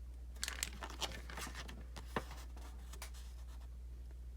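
Faint crinkling and rustling with scattered clicks as a stack of paper prop money and its wrapping are handled, over a steady low hum.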